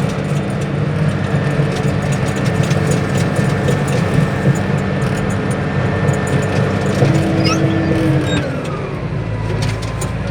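Bulldozer's diesel engine running with a steady high whine over the low engine note. About eight seconds in, the whine slides down in pitch as the machine slows.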